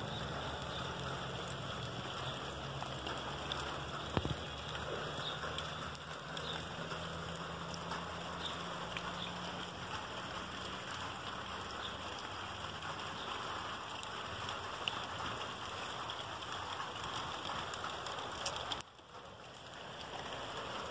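Steady hiss of water, rain or a small stream on wet stones, with a low hum under it in the first half that fades away. A single sharp click comes about four seconds in, and the sound drops away for about a second near the end.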